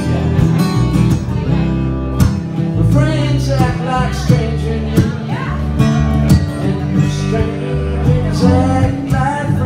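Acoustic guitar strummed, with a man singing a line about three seconds in and another near the end: a live solo song.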